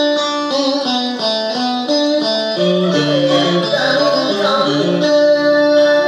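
Instrumental interlude of a traditional-style Vietnamese song: plucked string instruments play a stepping melody, with a long wavering note near the end.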